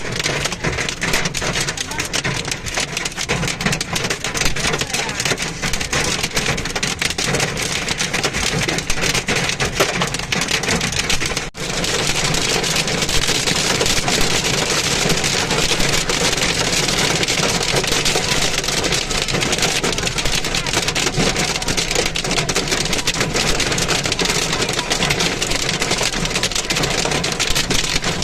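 A heavy storm downpour pelting hard surfaces, a dense hiss full of individual impacts. It breaks off for an instant about eleven and a half seconds in and comes back stronger and hissier.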